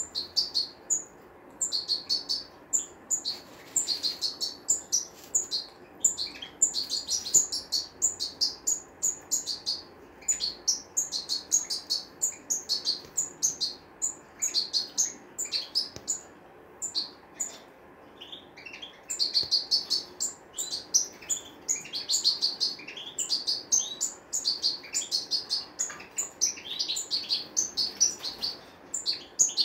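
European goldfinches singing: a fast, continuous twittering of short high chirps, with a short break about two-thirds of the way through before the twittering picks up again.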